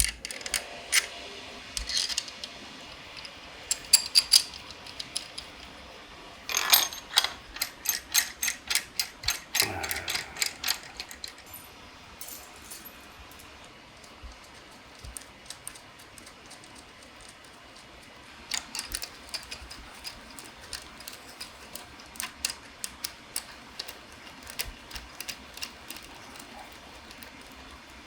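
Small metal parts and hand tools clicking and clinking during engine reassembly. The clicks come in irregular runs, densest from about six to eleven seconds in and again over the last ten seconds.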